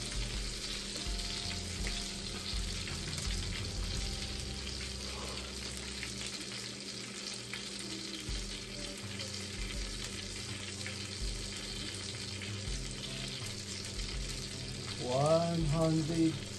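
Butter and cooking juices sizzling and crackling steadily in the hot metal baking pan around a whole baked trout fresh from the oven. A short voice sound comes near the end.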